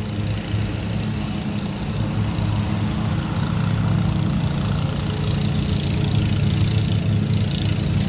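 Several lawnmowers running, a steady engine hum, with a higher hiss coming in about halfway through.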